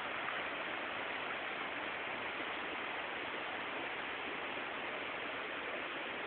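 Steady rush of a stream running high with water in the gorge below: an even, unbroken hiss of flowing water.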